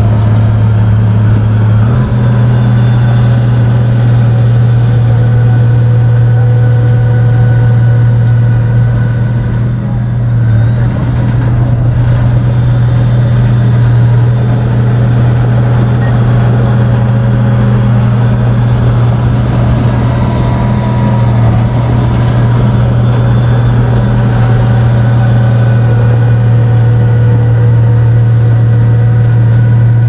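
Bulldozer's diesel engine running steadily with a deep, even drone, easing off briefly about ten seconds in.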